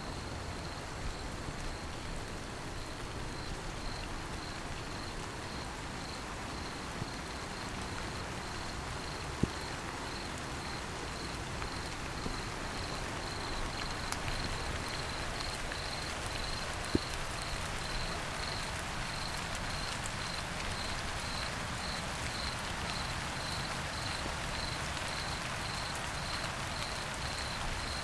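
Light rain falling steadily at night with a cricket chirping in an even, high-pitched rhythm over it; two sharper drop ticks stand out, about a third and two thirds of the way in.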